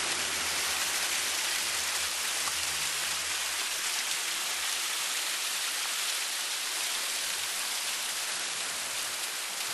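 Water splashing and cascading steadily down a landscaped boulder waterfall.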